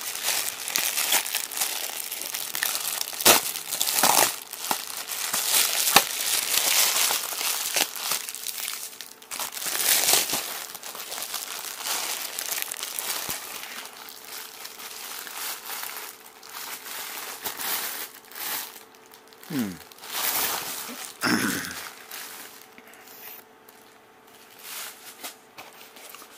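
Plastic padded mailer crinkling and rustling as it is handled and pulled open, with a few sharper crackles. Dense for about the first fourteen seconds, then coming in separate short rustles.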